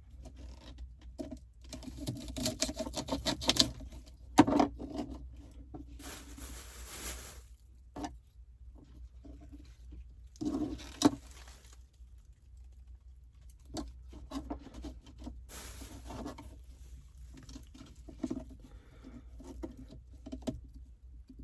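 Knife cutting scallions on a cutting board: irregular runs of quick taps, densest two to four seconds in, with a louder knock just after, and a couple of short rustling noises later on.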